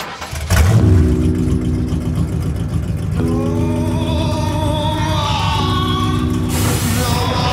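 An old Ford pickup's engine starts up about half a second in, with a short rev as it catches, then keeps running with a steady low rumble. Background music with guitar and singing plays over it.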